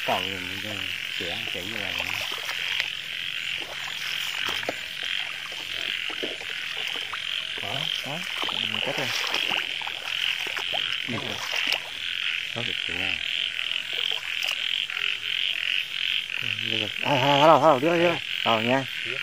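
Frogs croaking in a night chorus over a steady high-pitched insect chorus, with a louder run of croaks near the end.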